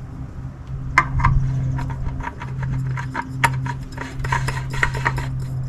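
Repeated light metallic clicks and clinks from a spin-on oil filter being fitted and a band-type oil filter wrench being handled, over a steady low hum.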